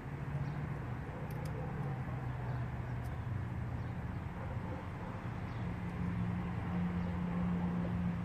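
A low, steady engine hum whose pitch shifts up and down a little, with a few faint bird chirps.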